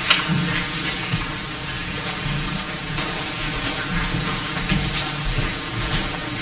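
Steady hiss of room tone and recording noise, with patchy low rumble and a few faint soft knocks.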